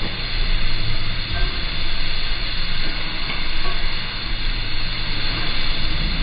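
Noodles sizzling on a hot teppan griddle while the cook flambés them, with a steady low rumble under the frying.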